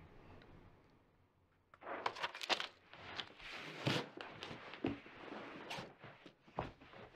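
After a moment of near silence, rustling and shuffling of clothing on carpet and bedding, with scattered soft scrapes and knocks, as a child crawls across the floor and climbs onto a bed.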